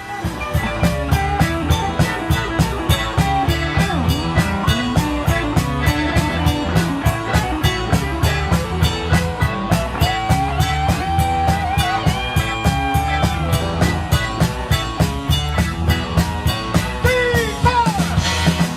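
Rock band playing an instrumental passage: drum kit keeping a steady, fast beat under bass, with a lead guitar playing held notes that bend and slide near the end.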